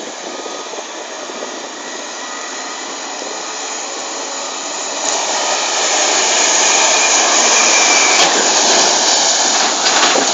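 Caterpillar 772 off-highway haul truck running, a steady, noisy engine and machine sound that grows steadily louder, loudest in the second half.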